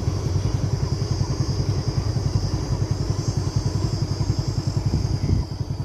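An engine running steadily at idle, a fast even low throb with a steady high whine above it.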